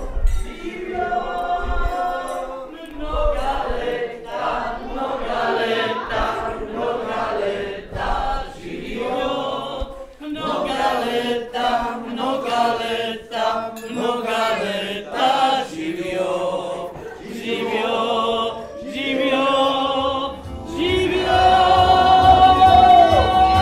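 A group of people singing together as a toast, glasses raised, growing louder near the end with a long held note.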